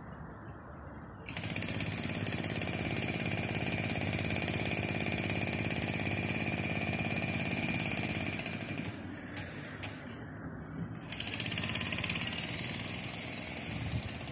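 A motorised power tool running loudly with a steady high whine. It starts suddenly about a second in, drops back after about eight seconds and surges again briefly near eleven seconds.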